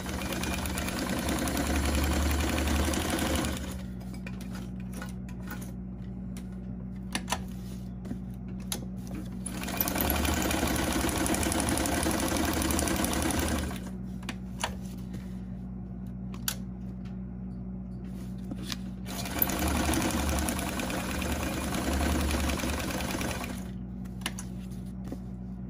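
Electric sewing machine stitching through book-page paper in three runs of about four seconds each. In the pauses between runs there are a few sharp clicks as the paper is repositioned. A steady low hum runs underneath throughout.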